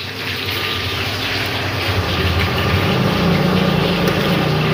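Water at a rolling boil in a steel saucepan on an induction cooker: a steady rushing bubbling with a low hum beneath that grows a little about two seconds in.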